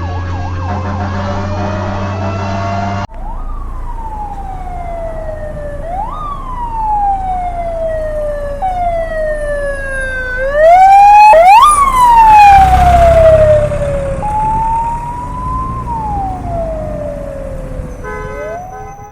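Emergency-vehicle siren wailing, its pitch climbing quickly and sliding down slowly every few seconds, growing louder as the vehicle approaches and passes, loudest about halfway with a low engine rumble, then fading. In the first three seconds a different siren plays over a steady low engine drone until an abrupt cut.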